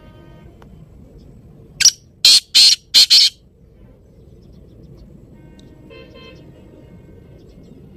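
Black francolin giving its loud, harsh call: one run of several grating notes close together, about two seconds in, lasting about a second and a half.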